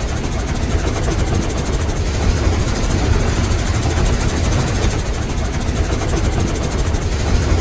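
Steam locomotive chugging steadily, its exhaust beats airy and hissing over a heavy low rumble.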